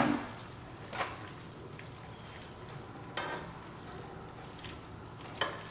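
Tongs stirring and tossing a chicken, mushroom and tomato mixture in a frying pan over a soft, steady sizzle, with a few short scrapes or clinks of the tongs against the pan: about a second in, about three seconds in and near the end.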